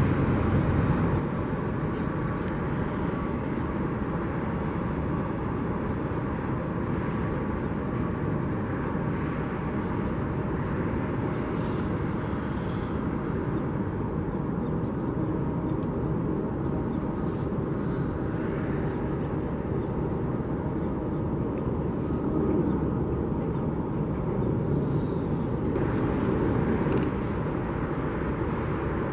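Steady, distant rumble of jet aircraft engines across an airport, with no change in pitch or level.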